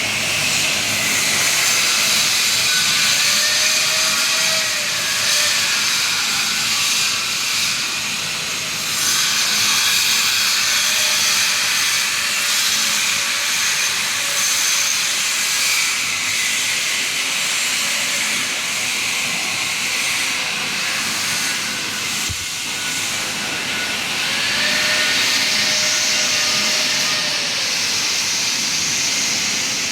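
Electric welding arc hissing steadily, dipping briefly twice.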